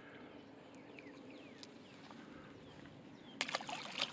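Birds giving short, falling chirps in the background, then about three and a half seconds in a brief splash as a yellow bass is dropped back into the lake.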